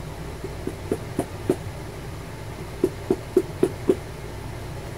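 Dull knocks of a leather battery case tapped against the edge of a wooden block, shaking a Quantum Battery 1+ cell loose. There are two runs of about five knocks each, about four a second, and the second run is louder.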